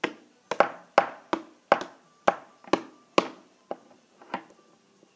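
A plastic chicken action figure pecked against a hard surface: a string of sharp taps, about two or three a second and a little uneven, getting weaker near the end.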